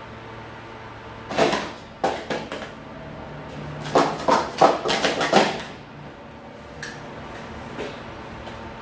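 Plastic sport-stacking cups (Speed Stacks PS2X gold) clattering on a stacking mat in a quick 3-3-3 stack: a rapid flurry of light clacks lasting about a second and a half as the three stacks go up and come back down, after a few scattered knocks near the start.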